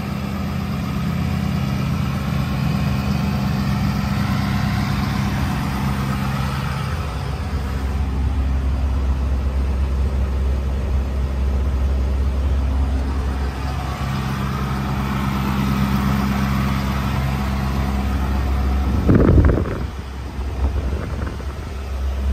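Ford F-350 Super Duty pickup's engine idling, a steady low hum, with one sudden thump near the end.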